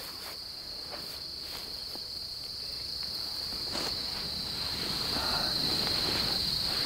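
A steady, high-pitched insect chorus, growing louder toward the end, with a few faint knocks and rustles.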